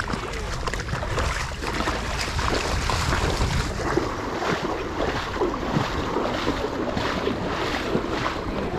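Rushing water with wind buffeting the microphone, a steady noisy wash broken by irregular small splashy crackles.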